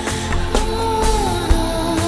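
Dance-pop music with a steady beat, about two beats a second, under a held melody that steps down in pitch about a second in.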